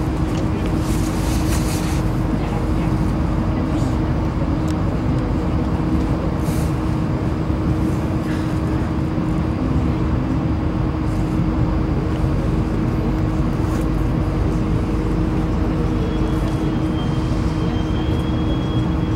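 Alstom NS-16 metro train running between stations, heard from inside the driver's cab: a steady rumble of wheels on rail with a constant hum. A thin high whine sets in near the end.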